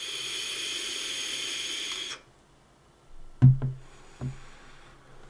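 Vape mod hissing with a steady airy whistle for about two seconds as it is drawn on. Then, as the vapour is blown out, two short throaty bursts of breath, the first the loudest.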